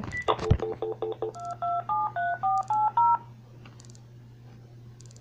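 Phone keypad dialing a number: a quick run of short beeps, then about eight touch-tone (DTMF) dialing tones, each a two-note beep, at about four a second. There is a knock from handling the phone about half a second in.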